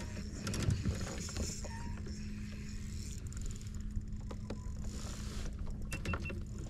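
Wind buffeting a microphone out on open water, under a steady low hum, with scattered light clicks and knocks from the fishing gear and kayak.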